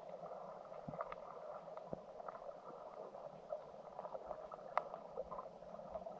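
Stream water heard underwater through a submerged camera: a steady rushing hiss of flowing water with scattered small clicks and ticks, the sharpest about three-quarters of the way through.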